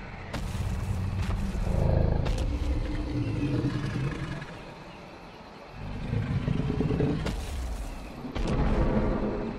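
Deep, rumbling growls of a large animated dinosaur on a documentary soundtrack, coming in two spells with a lull about halfway through.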